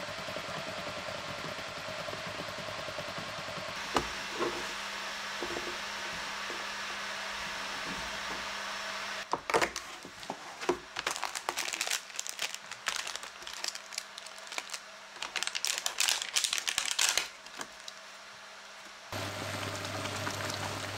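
Water simmering in a steel pot on an induction hob, with a faint steady hum. About nine seconds in, plastic-wrapped instant ramen packets crinkle and click as they are handled in their cardboard box. Near the end, water at a rolling boil in the pot, over a low steady hum from the hob.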